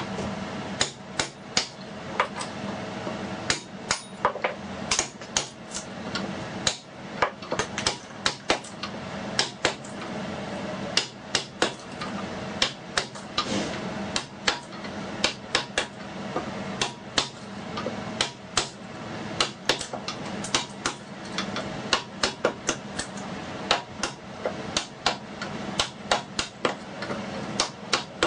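Hammer striking a wood chisel again and again, cutting out wood, in uneven runs of sharp taps with short pauses between them.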